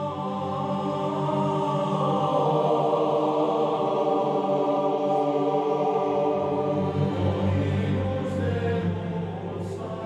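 Intro music of long, held notes over a low drone. It swells up over the first couple of seconds and eases off near the end.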